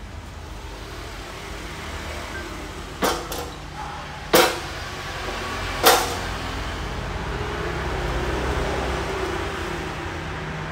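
Three sharp knocks, about a second and a half apart, from the parts of two abrasive metal cut-off saws being handled, over a steady low rumble in the background.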